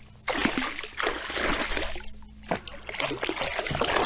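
Water splashing as a hooked northern pike thrashes at the surface, in two long bouts with a short lull about two seconds in.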